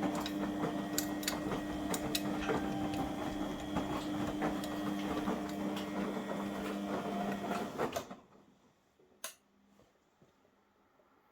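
Front-loading washing machine running with its covers off: a steady motor hum with scattered clicks and knocks from the belt-driven drum. It stops about eight seconds in, leaving near silence broken by a single click.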